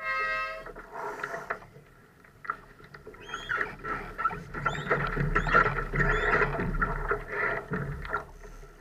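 A held pitched tone ends within the first second. From about three seconds in, the noises of a Laser sailing dinghy at close quarters follow: water, wind and a low rumble, with irregular short high squeaks.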